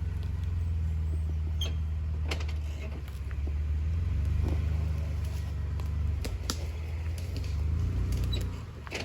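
Off-road vehicle's engine running low and steady as it crawls over rock ledges, with a few sharp knocks and clicks over it.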